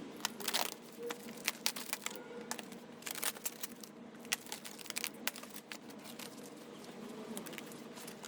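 Firewood crackling as it burns in a small wood stove: irregular sharp pops and cracks, a few louder snaps among many small ones.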